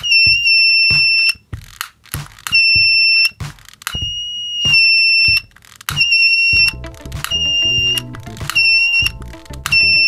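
Small electronic buzzer of a homemade infrared-LED fire alarm, set off by a lighter flame held near the sensor, giving a high-pitched steady beep that starts and stops in irregular bursts of about a second. Background music comes in about two thirds of the way through.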